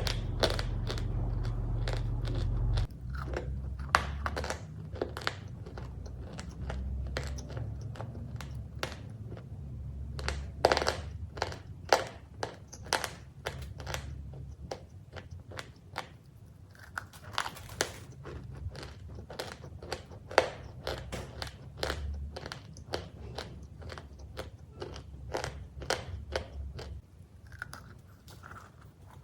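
Close-up crunching of crisp cookies being bitten and chewed: many sharp, irregular crackles. A low hum runs underneath and drops noticeably about three seconds in.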